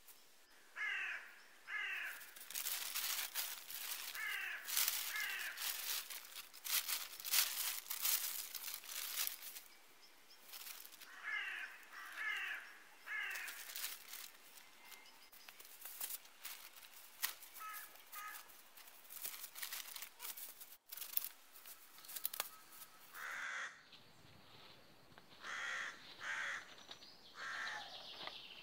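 Crows cawing again and again in short runs of two or three harsh calls, over close rustling and crinkling of a plastic tarp being handled.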